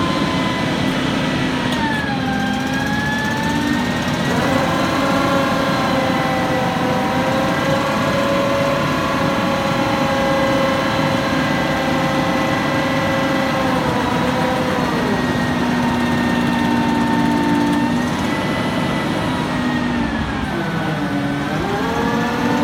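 Forklift's 318 V8 gas engine running with a whining tone on top, its pitch falling and rising several times as engine speed changes while the hydraulic boom is lowered and retracted.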